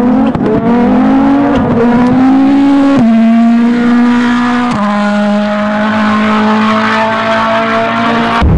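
Toyota Yaris WRC rally car's turbocharged four-cylinder engine held at high revs, flat out. The note holds one steady pitch and jumps to a slightly different pitch twice, about three seconds in and again near five seconds, with a deeper rumble coming in just at the end.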